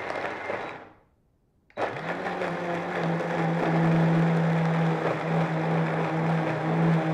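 Countertop blender puréeing basil, almonds, olive oil and garlic into pesto: it winds down and stops about a second in, then switches back on sharply a moment later and runs at a steady hum.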